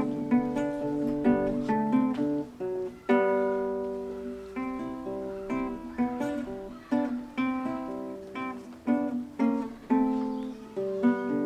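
Classical guitar played solo and fingerpicked: a steady run of plucked notes and chords ringing over a bass line, with a firmer chord about three seconds in.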